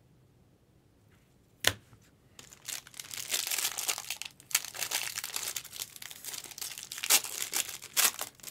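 A trading card pack's plastic wrapper being torn open and crinkled by hand, after a single sharp click about a second and a half in. The crackling runs on for several seconds with a few louder crackles.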